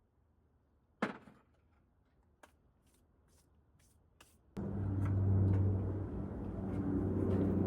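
A sharp knock about a second in and a few light ticks, like parts being handled. About halfway through, a steady low mechanical hum cuts in abruptly.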